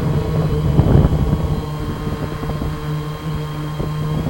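Blade Chroma quadcopter in flight: its motors and propellers hum steadily at one pitch, over a low wind rush.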